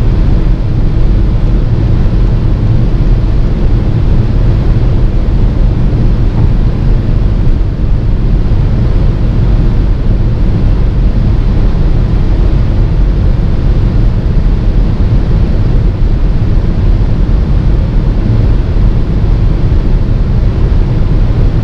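Cabin noise of a 2016 VW Tiguan at close to 190 km/h near its top speed: a steady, loud blend of wind, tyre and engine noise as the car slowly keeps gaining speed.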